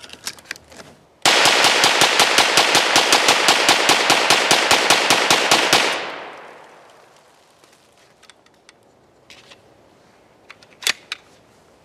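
Small clicks of 9mm rounds being pressed into a magazine. Then the Trailblazer Pivot 9mm carbine firing a rapid, evenly spaced string of semi-automatic shots for about four and a half seconds, the reports dying away in an echo. Near the end come a few sharp metallic clicks as the magazine is handled.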